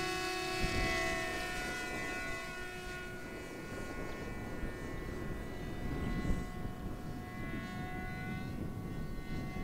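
Twin brushless electric motors of a HEE WING T-1 Ranger RC flying wing whining at a steady, held pitch in flight.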